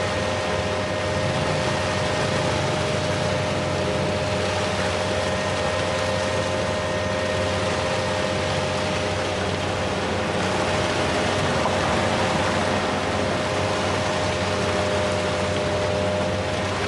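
Heavy machinery engine running steadily, with a constant low hum, a steady higher whine and a broad noisy hiss.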